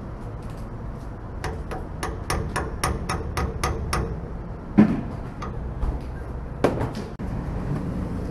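Fuel dispenser nozzle clicking rapidly, about four clicks a second for a couple of seconds, as a 40-gallon steel transfer tank is topped off to full, followed by two louder clunks.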